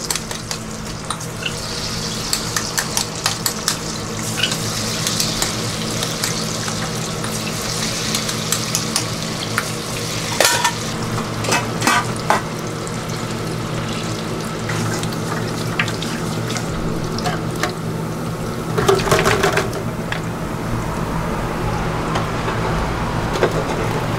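Falafel balls deep-frying in hot oil in an electric countertop deep fryer, a steady sizzle that is strongest in the first half. Many sharp metal clicks and a few louder clatters come from the falafel scoop and fryer basket.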